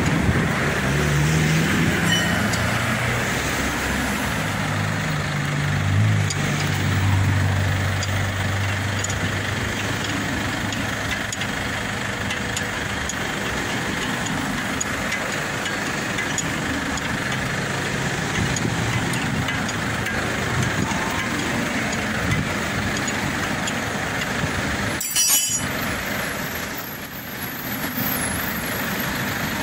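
Steady motor-vehicle noise with a low engine hum during the first ten seconds or so.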